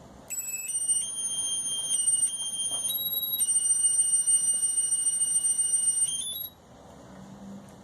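Electronic beep tones, a run of steady notes that step up and down in pitch for about six seconds and end in a quick flurry of short notes.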